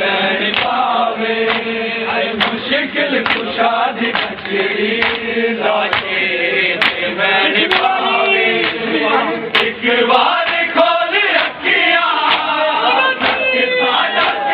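A large crowd of men chanting a noha (Shia mourning lament) together in held, wavering notes, with irregular sharp slaps of matam (hands beating on bare chests) breaking through about once a second.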